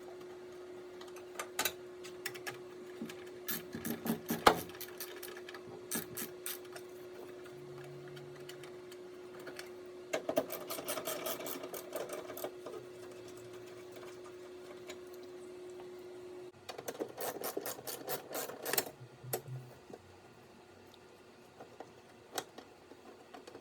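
Hand ratchet with a 10 mm socket clicking in quick runs as the cowl plate's bolts are backed out, with scattered single metal clicks and knocks. A faint steady hum stops about two-thirds of the way through.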